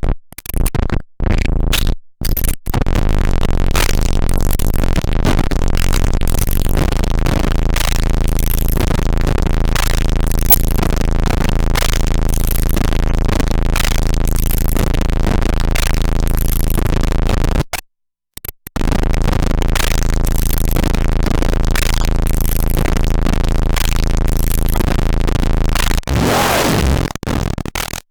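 Drum machine played through the Snowstorm white-noise distortion pedal, turned into harsh, blown-out noise with a repeating beat. The sound cuts out briefly a few times near the start and once for about a second two-thirds of the way through.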